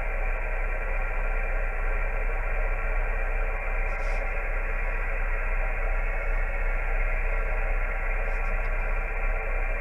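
Amateur HF radio receiver tuned to the 20-metre band, giving a steady hiss of band static through its speaker with no stations coming through: the band is dead.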